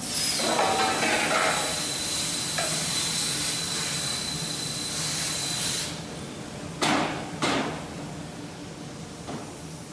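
A steady hiss with a thin high whine for about six seconds, then two sharp metallic clanks about half a second apart as a bent steel section is set down onto a stack of steel sections.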